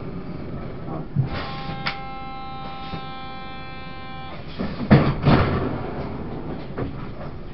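Inside the carriage of a Taiwan Railway push-pull Tze-Chiang express, a steady buzzer tone sounds for about three seconds and cuts off abruptly. Then the carriage's sliding doors bang shut twice, the loudest sounds, over the low rumble of the train.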